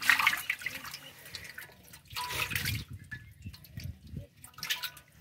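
Live fish thrashing in shallow water in an aluminium pot, splashing in three bursts: a loud one at the start, another about two seconds in, and a shorter one near the end.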